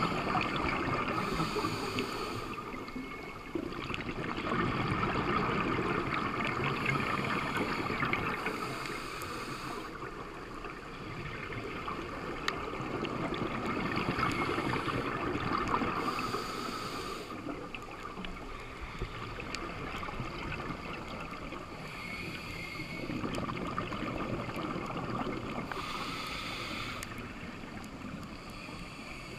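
Scuba diver's regulator exhaust bubbles, recorded underwater through a GoPro housing: a bubbly hiss swells in bursts about every seven or eight seconds with each exhaled breath. Between breaths a steady muffled underwater rush with fine crackling.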